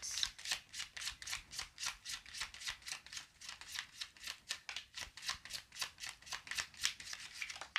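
A deck of tarot cards being shuffled by hand, a steady run of quick papery card flicks, about four or five a second.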